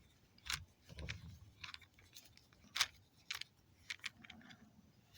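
Small, sharp clicks and scrapes, irregularly spaced, of a hand jeweler's screwdriver working at tiny screws in a small plastic projector housing; the loudest click falls a little past the middle.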